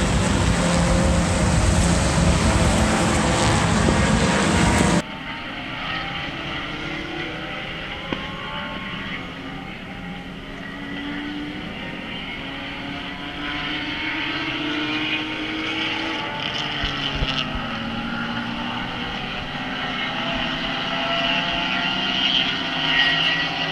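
Racing cars' engines heard from trackside. For the first five seconds a loud, even rush drowns out everything else, then cuts off suddenly. After that several engines rise and fall in pitch as they accelerate and change gear.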